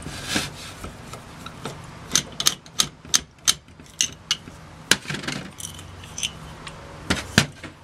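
Light metallic clicks and clinks from a screwdriver working the secondary jet out of an Aisan two-barrel carburetor and from the carburetor body being handled, with two louder knocks a little after seven seconds in.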